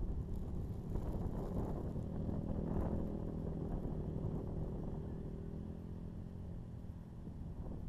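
KTM 450 EXC's single-cylinder four-stroke engine running under way on a ride, with the level easing off somewhat in the second half.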